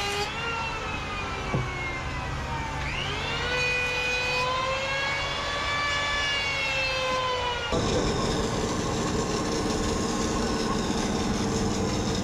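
Electric hand plane cutting timber: its motor whine drops in pitch as the blades bite into the wood and rises again as they free up. About two-thirds of the way through it gives way abruptly to a steadier, noisier machine sound of a wood lathe running.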